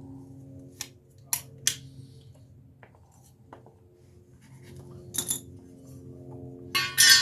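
Sharp metallic clinks and taps of hand tools and parts on metal, a few at a time, with a louder clattering rattle near the end, over faint steady background music.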